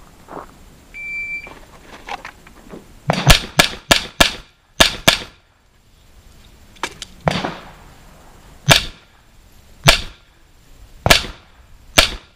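A shot timer's short start beep about a second in, then pistol shots at steel targets: a fast string of about six shots, followed by slower single shots roughly a second apart.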